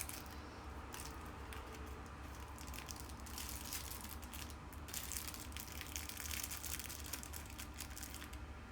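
Bouquet wrapping material crinkling and rustling as it is handled and folded, in a dense run of crisp crackles that is loudest in the middle.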